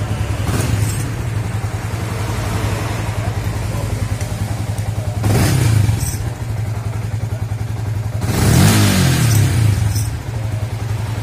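Yamaha Vixion's single-cylinder fuel-injected engine idling steadily and blipped by hand on the throttle a few times, with the longest rise and fall of revs about eight to nine seconds in. The idle holds stable and the engine picks up promptly, now that the intake air temperature sensor connector behind the code 22 hesitation has been repaired.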